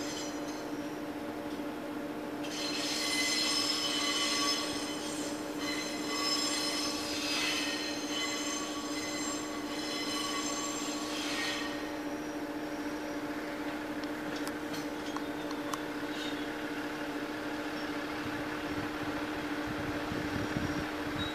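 Diesel railcar creeping along the depot tracks, its engine giving a steady hum. From about two seconds in until about eleven seconds, its wheels squeal high-pitched against the rails.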